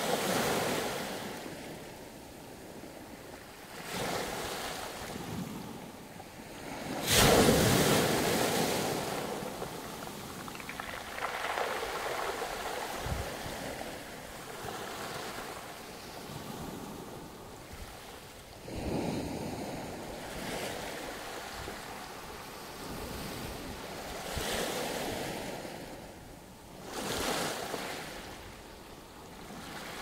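Small sea waves breaking on a pebble beach and washing over the stones, swelling and ebbing every few seconds. The biggest wave comes in suddenly about seven seconds in.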